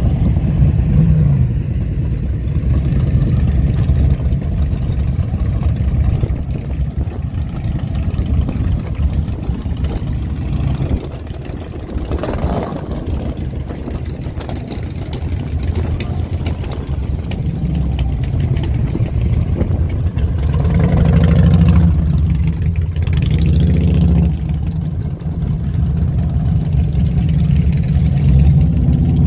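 Several big cruiser and touring motorcycles running loudly, idling and revving as bikes ride past, with the engine noise swelling about two-thirds of the way through and again near the end.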